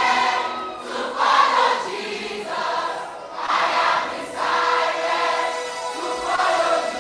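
A large group of voices singing a gospel song together in chorus, with phrases that swell and fade every second or so.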